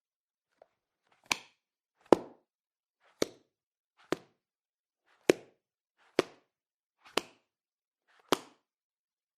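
A book hitting or being snapped against something: eight short, sharp thuds, about one a second.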